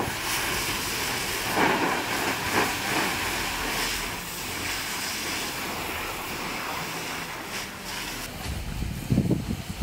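Fire hose spraying a jet of water onto smouldering ash: a steady hiss, with wind buffeting the microphone near the end.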